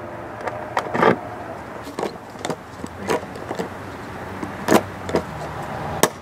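Hand rivet gun squeezing aluminum Olympic blind rivets into aluminum trailer skin: a run of about ten sharp metallic clicks and snaps at irregular spacing, the loudest a little before the end, over a steady low hum.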